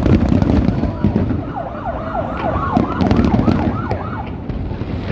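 Fireworks booming and crackling in a continuous barrage, with a quick run of short whistles that each fall in pitch.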